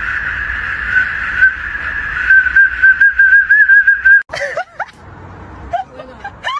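A long, steady, high whistling tone that wavers toward its end and stops abruptly. It is followed by a dog's yelps and whimpers, short squeaky cries repeated several times a second near the end.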